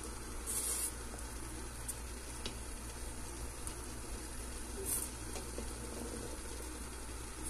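Pot of salted water simmering with a steady bubbling hiss, while a plastic slotted spoon is dipped through it to scoop out cooked potato gnocchi. Two brief splashy swishes, about half a second in and again about five seconds in.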